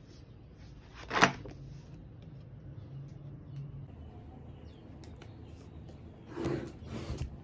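Handling noise on a desk: one sharp knock about a second in, then a few quick clicks and knocks near the end as a pair of scissors is handled.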